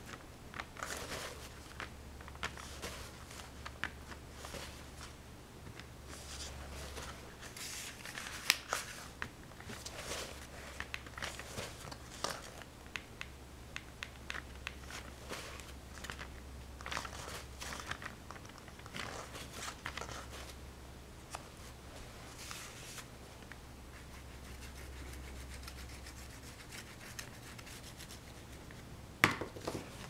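Irregular rubbing and scratching strokes, short scrapes scattered through, with a few sharper clicks and a faint low hum underneath.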